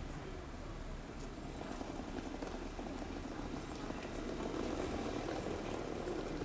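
Street ambience: a steady rumble of traffic that swells a little about four seconds in.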